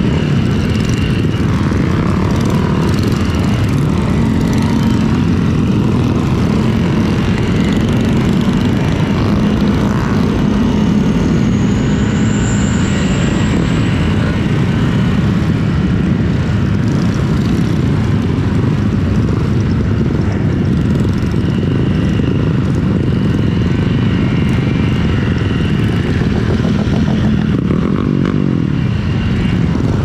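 Honda LEAD125 scooter's single-cylinder engine running steadily while riding, mixed with steady road noise.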